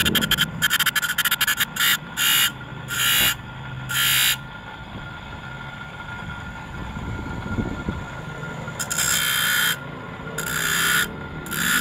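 Handsaw teeth ground one at a time against an abrasive wheel spun by an electric motor: a quick run of short, sharp grinding rasps, a few seconds with only the motor running, then two longer grinds near the end.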